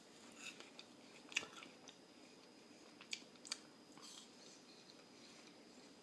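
Faint chewing of a mushy rotten apple: soft, wet mouth sounds with a few small clicks scattered through.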